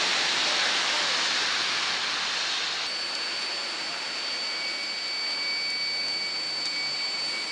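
Steady outdoor hiss, like rain or wind on the microphone. It drops a little about three seconds in, and a thin, steady high whine runs through the rest.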